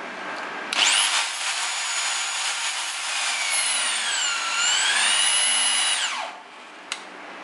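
Electric torque wrench's motor and gearbox running under load on a torque tester: a high whine starts about a second in, sags in pitch midway and climbs back, then cuts off about six seconds in and winds down. A single sharp click follows about a second later.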